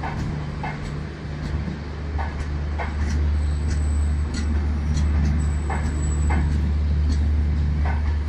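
Electric-locomotive-hauled passenger train approaching on the track: a steady low drone that grows louder from about three seconds in, with scattered clicks and, twice in the middle, a faint thin high whine.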